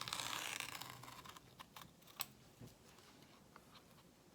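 Scissors cutting embroidery stabilizer behind a zipper on the back of the hoop: a rustling cut for about the first second, then a few faint sharp snips and clicks.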